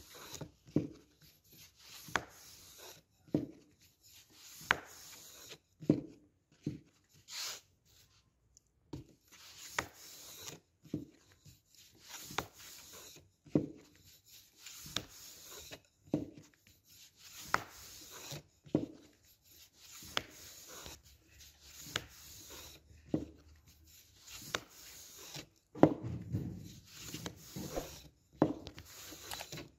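Long, thin wooden rolling pin rolling dough out thin on a floured wooden board: wood rubbing and rolling, with a light knock every second or so as the pin is pushed and brought back. The strokes are busiest and loudest a little before the end.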